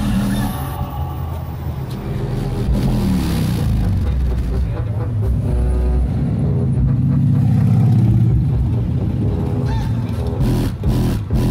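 Electronic music with heavy bass played through a car stereo, driven by an 8-inch DB Drive WDX G2 subwoofer mounted in the trunk. A gliding sweep rises through the middle, and a pulsing beat comes back near the end.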